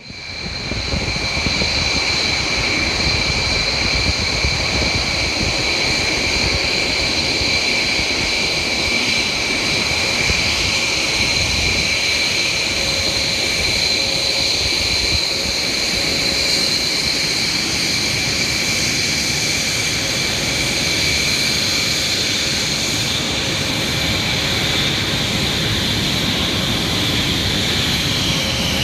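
B-1B Lancer bombers' General Electric F101 turbofan engines running steadily on the ramp: a constant high whine over a broad rushing noise, fading in at the start.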